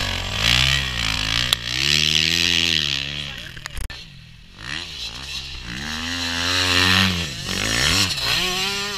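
Motocross bike engines revving up and easing off as riders pass through corners, the engine note rising and falling several times. It dips about four seconds in, then another bike revs up.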